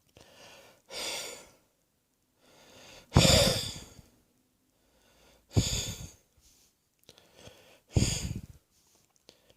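Wheezy, laboured breathing from a chest congested by a viral infection: four slow breaths, each a fainter intake followed by a louder outbreath with a sharp start, the loudest about three seconds in.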